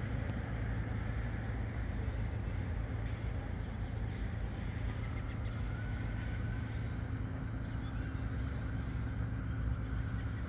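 A vehicle engine idling steadily nearby, a constant low rumble that holds unchanged throughout.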